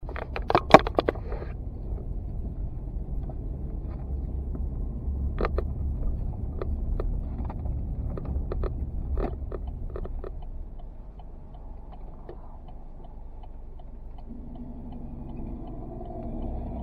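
Loose GoPro camera mount rattling and knocking over a steady low rumble, with a burst of loud knocks at the start and scattered clicks after. A pitched hum comes in near the end.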